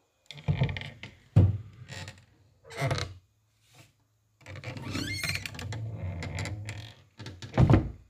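Door opening and closing: a series of knocks and handling noises with a sharp loud knock about a second and a half in, then a longer drawn-out sound of about two and a half seconds, and a loud thump near the end.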